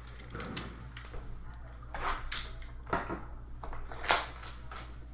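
Trading-card packaging being handled and opened: a series of short crinkles, rustles and scrapes, the loudest about four seconds in, over a steady low electrical hum.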